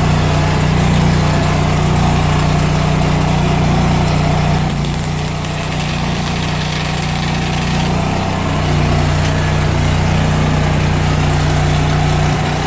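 Lincoln Ranger 10000 engine-driven welder running steadily, with a MIG welding arc from an aluminum spool gun heard over it for a few seconds in the middle.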